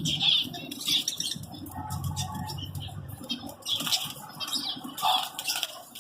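Caged birds chirping and fluttering their wings, with short high chirps scattered throughout.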